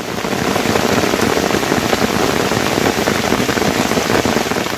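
Loud, steady water noise: a dense hiss full of small splashes and patters, like heavy rain or fast-rushing water.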